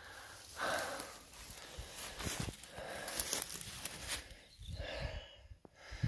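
A person breathing heavily, with footsteps and rustling through low plants and a few soft clicks.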